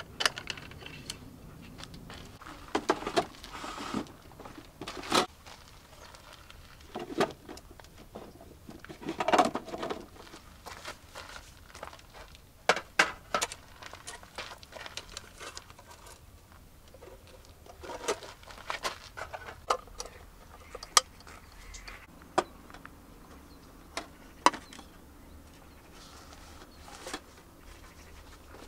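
Handling noises: scattered sharp clicks and light knocks mixed with short bursts of rustling and crinkling, coming in irregular clusters with quieter gaps, tapering off in the last few seconds.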